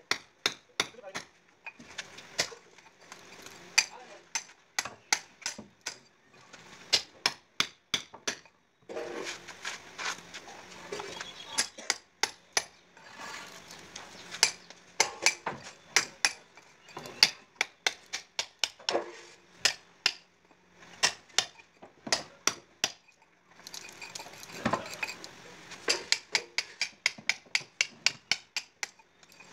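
Hammer striking a steel chisel, sharp metallic clinks about two to three a second in runs with short pauses, chipping a recess into a brick wall.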